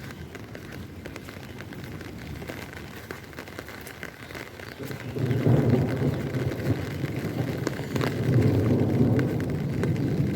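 Steady rain falling, with a louder low rumble of noise coming in about halfway and lasting on.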